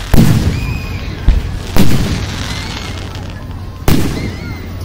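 Aerial firework shells bursting overhead: four sharp booms spread over the few seconds, the second one smaller, each trailing off in a rolling rumble.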